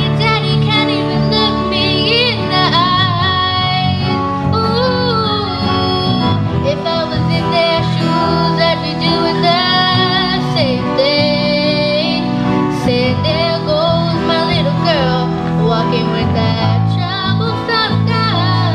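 Teenage girls' voices singing a pop song into microphones, one lead line sliding and wavering over others, accompanied by keyboard and acoustic guitar holding steady chords underneath.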